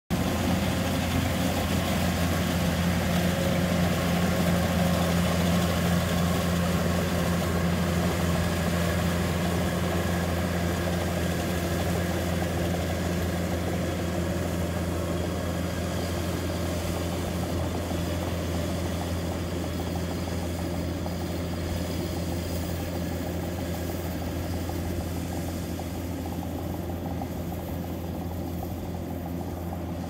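Kubota DC-105X rice combine harvester running under load as it harvests rice, its diesel engine giving a steady low drone that slowly fades as the machine moves away.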